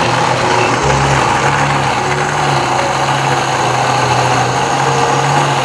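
Philips countertop blender motor running at full speed, a loud steady whir with a low hum, as it grinds fried peanuts, garlic and red chillies in water into a peanut-sauce paste.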